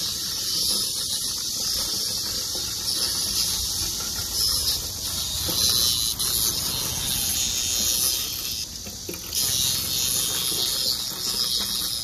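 Chorus of black cicadas (Cryptotympana atrata) buzzing, a loud, steady, high hiss that dips briefly about nine seconds in.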